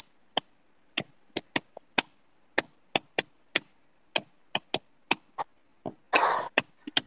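A run of sharp clicks or taps at irregular spacing, roughly two or three a second, with a short burst of noise about six seconds in.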